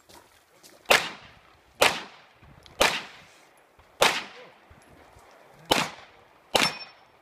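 Six pistol shots fired at an uneven pace, each a sharp crack with a short ringing tail: three about a second apart, then longer pauses before the last three.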